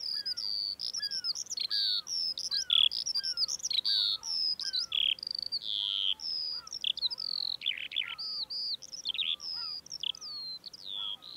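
Songbirds singing: a continuous run of quick, high chirps and trills, with a softer, lower call repeating at a steady pace underneath.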